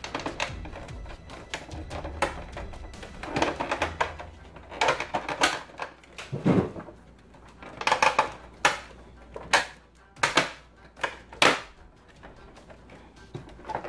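Hard plastic clicks, snaps and rattling as the case of a 1989 Milton Bradley Electronic Talking Battleship game is handled and pressed together, its tabs clicking back into place. The clicks come irregularly, with several sharp snaps in the second half.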